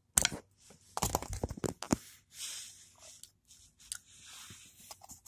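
Metal parts of a Consew 206RB industrial walking foot sewing machine clicking, knocking and scraping as the loosened hook assembly is worked off its shaft, with a quick cluster of clicks about a second in and softer scraping after.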